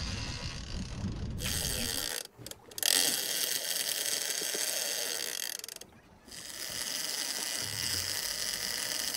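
Shimano Tiagra 80 big-game reel running under heavy load from a hooked bluefin tuna, a steady mechanical ratcheting buzz. It comes in about a second and a half in and breaks off briefly twice.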